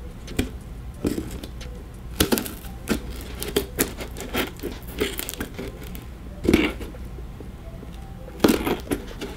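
Scissors cutting through packing tape on a cardboard box: irregular snips with the crackle of tape and cardboard, the loudest about two, six and a half and eight and a half seconds in.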